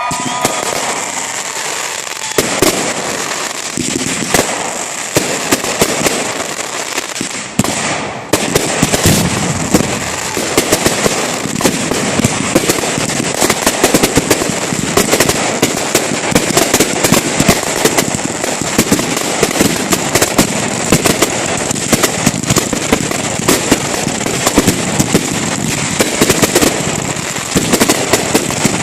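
Fireworks going off in a dense, continuous barrage of rapid pops, bangs and crackling.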